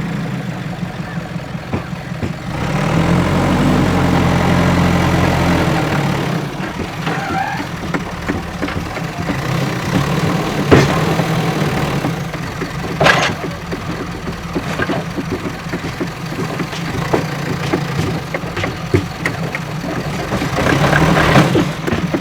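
JCB backhoe loader's diesel engine running under working load, revving up for a few seconds early on and again near the end. Between the revs come scattered sharp knocks, the loudest two about eleven and thirteen seconds in.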